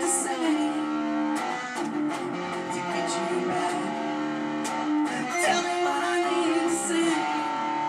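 A guitar played solo: strummed and picked chords with notes ringing on between the strokes.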